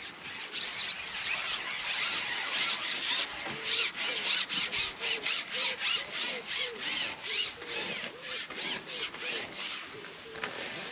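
Long carbon fishing pole being shipped out hand over hand with a pole cup of groundbait on the end, each push a short rasping rub of the pole sliding, about three a second, tailing off near the end.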